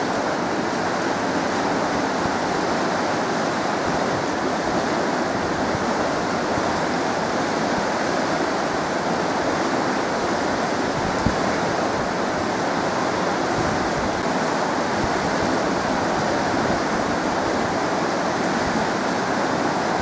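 Water rushing steadily through the open gates of a hydroelectric dam: an even, unbroken roar of falling and churning water.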